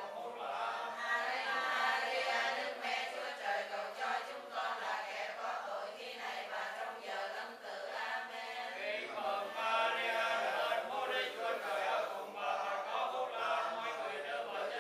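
A congregation of many voices chanting Catholic prayers together in unison, in the sung recitation style of Vietnamese prayer, running on without a break.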